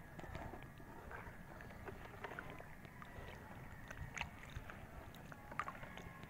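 Faint water lapping and sloshing around a person wading chest-deep, with scattered small clicks and ticks.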